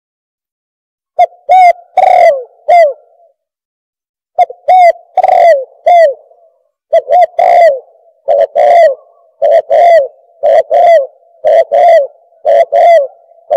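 Turtle dove (bato-bato) cooing: short hoarse coos in phrases of three or four notes, starting about a second in and following each other faster toward the end. A recorded call played as a lure to draw doves closer.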